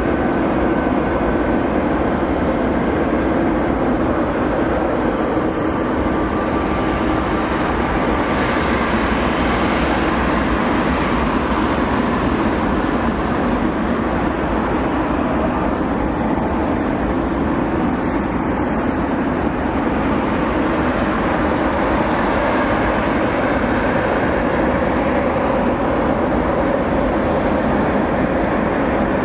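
Jet airliner's engines at takeoff thrust: a loud, steady rush of noise with faint whining tones running through it.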